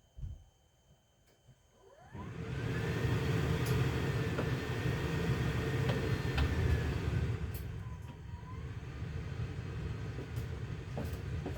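A hot-water tap is turned on about two seconds in: rushing water starts suddenly, with a whine that rises in pitch and then holds steady.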